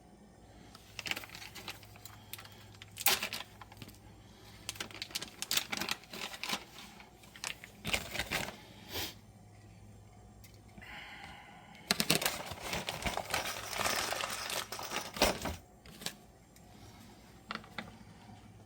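Small plumbing parts being handled while a PEX line is fitted to a shut-off valve: scattered clicks and taps, with a longer stretch of rustling and crinkling about twelve seconds in.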